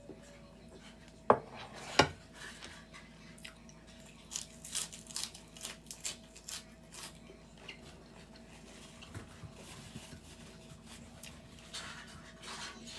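Eating at a table: two sharp clacks of a dish set down about a second and two seconds in, then a run of small crunching, chewing clicks that thin out in the second half.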